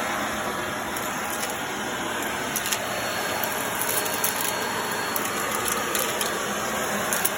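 Vacuum cleaner running steadily, with scattered clicks and rattles from debris, such as spilled dry cat food, being sucked up.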